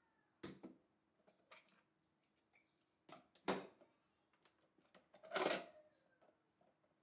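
Plastic knocks and clunks as the hopper and juicing bowl of a Nama J2 cold press juicer are taken off its motor base while the juicer won't switch on. There are several short knocks, the loudest about three and a half seconds in, and a longer clunk around five and a half seconds.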